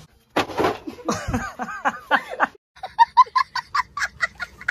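A young child laughing hard, breaking into quick high-pitched bursts of about four or five short laughs a second.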